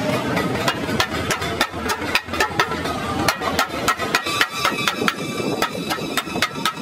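A small hammer tapping along the metal edge of a truck radiator's brass top tank where it joins the core, in quick light knocks, about three to four a second, seating the tank seam.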